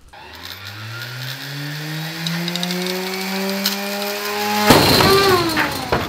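A 9-inch grinding disc, driven far past its rated speed, spins up on a high-speed motor: a whine rising steadily in pitch. After about four and a half seconds the disc bursts with a sudden loud crack, the loudest moment, and the pitch then falls. The overspeed is what shatters the disc.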